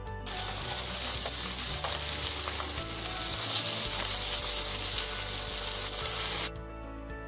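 Salmon fillets sizzling in hot oil in a frying pan as they are turned over with a metal spatula and fork. The loud sizzle starts suddenly just after the start and cuts off suddenly about a second before the end.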